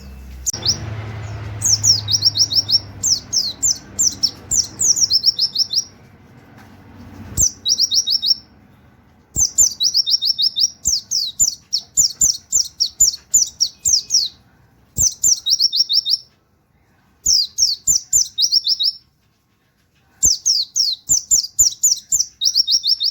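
White-eye (pleci) singing in rapid-fire runs of high, sharp 'wit wit' notes. The runs come in bursts of about a second, with short pauses between, and faint clicks fall in between.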